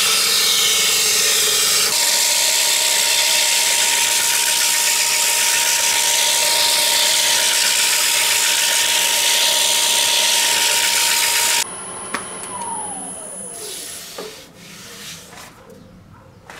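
Carbide turning tool cutting a spinning epoxy-resin and golf-ball blank on a woodturning lathe: a loud, even scraping hiss with a steady high whine. Near the end the cutting stops abruptly and the whine falls in pitch as the lathe spins down, followed by a few faint knocks.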